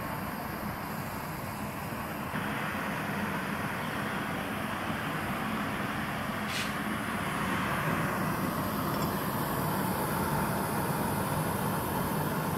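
Two MAPP gas torches firing into a small crucible furnace, a steady hiss of flame as the crucible heats to melt gold. The hiss gets brighter and a little louder about two seconds in, with one brief tick near the middle.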